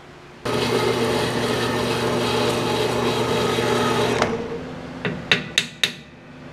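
Metal-cutting bandsaw running and cutting a half-inch square steel bar: a steady hum under a grinding noise that starts abruptly and eases off after about four seconds. Three sharp clicks follow near the end, about a third of a second apart.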